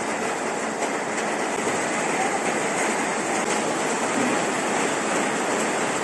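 Heavy rain pouring down in a rainstorm, a steady, even rushing hiss.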